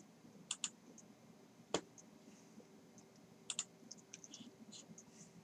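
A handful of faint computer mouse and keyboard clicks, scattered and irregular, with the sharpest about two seconds in and a quick pair a little after halfway.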